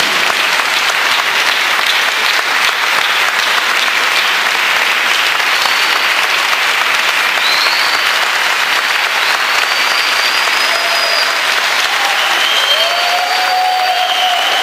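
A large audience applauding: a long, steady round of clapping.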